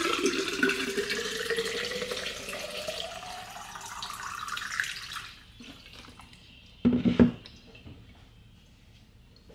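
Water running from a kitchen tap into a container, its pitch rising steadily as the container fills, cut off about five seconds in. A short knock follows about two seconds later.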